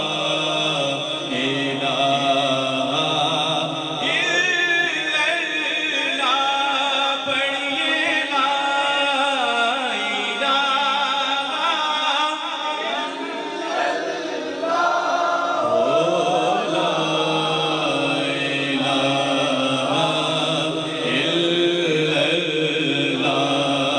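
A solo male voice singing an Urdu naat into a handheld microphone, in a devotional chant style with long held notes and gliding ornaments.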